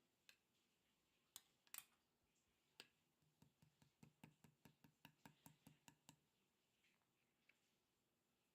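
Slime being pressed and worked by hand, giving faint, sharp little clicks and pops: a few scattered ones, then a quick run of about five a second for some three seconds.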